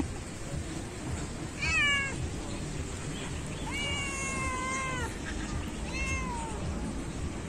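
Stray cat meowing three times, begging for treats: a short meow, then a long drawn-out one, then another short one.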